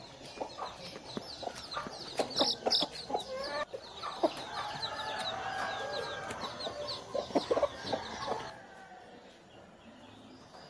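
Free-range chickens, a hen and a rooster, clucking and calling with many quick high chirps. The calling stops about eight and a half seconds in.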